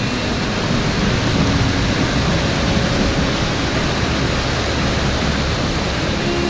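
Steady, loud rushing noise, even throughout with no distinct events.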